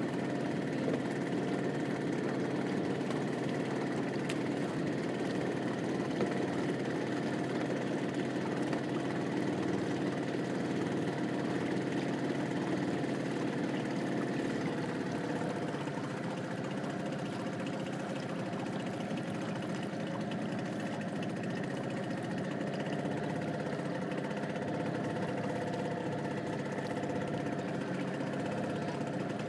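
A small boat's engine running steadily as the boat travels across the water, an even drone that holds its pitch throughout.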